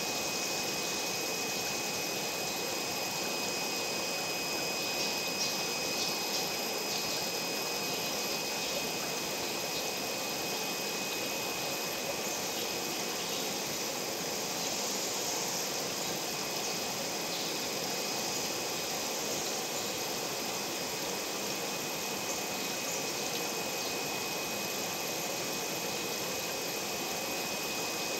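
Steady noise of a water pump and running water, with a faint steady high-pitched whine over it.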